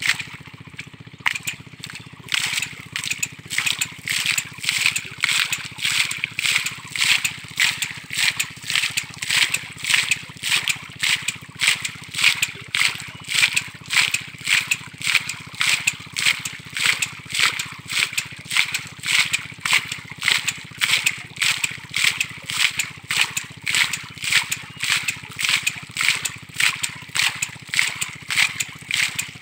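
Hand-operated sludger boring of a tube well: the drill pipe is pumped up and down with a bamboo lever, and each stroke gives a rattling splash as mud and water spurt from the pipe top. The strokes come in a steady rhythm of about three every two seconds.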